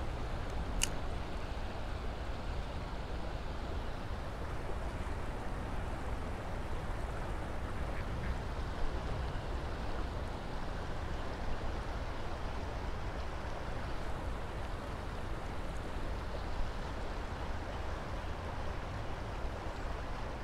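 Steady rush of a fast, choppy river current, with low wind rumble on the microphone and a single brief click about a second in.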